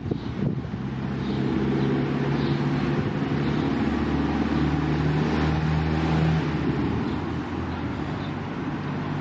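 An engine running steadily nearby, a low hum that holds its pitch and then dies away about six and a half seconds in, over constant outdoor background noise.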